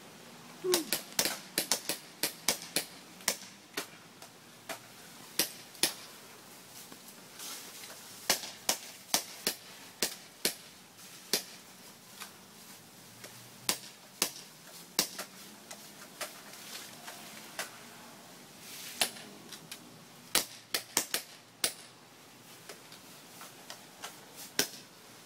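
Airsoft guns firing: dozens of sharp, irregular snaps, some single and some in quick runs of two or three.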